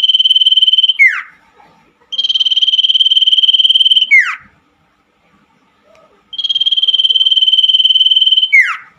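Common iora song: a fast, even trill held on one high pitch for about two seconds, ending in a sharp falling note, given three times with short pauses between.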